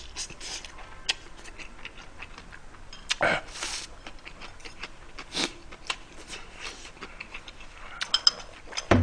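A person chewing a mouthful of instant noodles with the mouth close to the microphone: many small wet clicks, with a short breathy sound about three seconds in and again about five seconds in.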